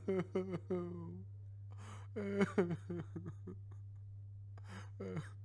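A voice making short vocal sounds that fall in pitch, repeated quickly at the start, again about two seconds in, and briefly near the end, over a steady low hum.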